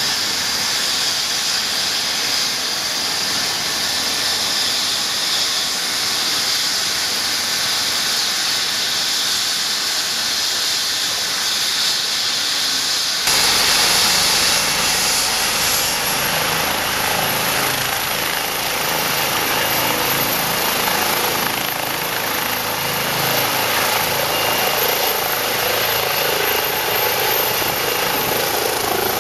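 Rescue helicopter's turbine and rotor running: at first a steady hissing whine. About 13 s in it turns louder, with rotor thrum and a high turbine whine that slowly rises in pitch as the helicopter spools up and lifts off.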